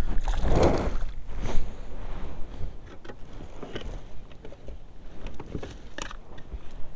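A just-caught crappie being handled and slid into a crinkly clear plastic sleeve: plastic rustling with scattered small taps and clicks, after a brief rush of noise in the first second.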